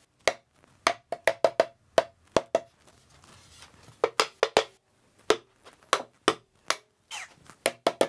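Mallet tapping the corners of a wooden canvas stretcher frame: quick groups of sharp, hollow wooden taps with short pauses between them. The taps knock the stretcher bars' corner joints closer together to close the gaps while squaring the frame.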